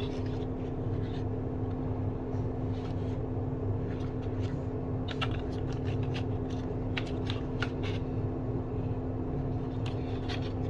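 Glass marbles rolling down a wooden marble-run track: a steady rolling rumble broken by scattered sharp clicks as marbles knock against track pieces and each other.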